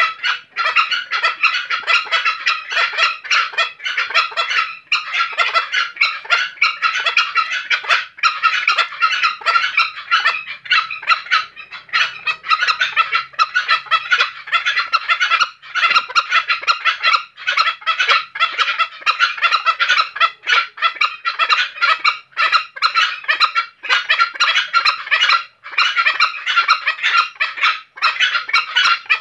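Tame green junglefowl rooster calling with a dense, rapid rattling sound that goes on almost without pause, broken by short gaps every few seconds. This is the distinctive call of the bird in breeding season (birahi).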